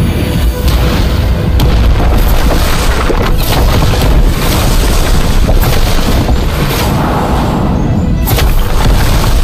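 Battle sound effects: heavy booms and energy-blast impacts with a constant deep rumble, several sharp hits standing out, over dramatic background music.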